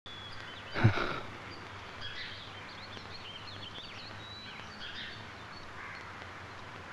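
Small birds chirping in a quiet ambience over a faint steady hum, with one short, louder sound falling in pitch just under a second in.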